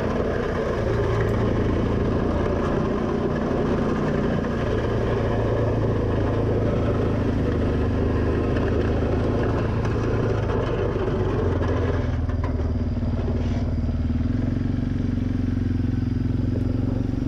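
Suzuki Eiger 400 ATV's single-cylinder four-stroke engine running steadily under load as it pushes snow with a front plow blade. Its pitch steps up and down a few times with the throttle.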